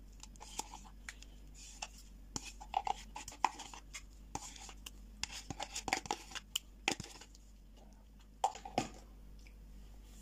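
A spoon scraping thick sour cream out of its container and dropping it into a cheesecloth-lined bowl: irregular soft scrapes and clicks, busiest in the middle, with one more cluster near the end.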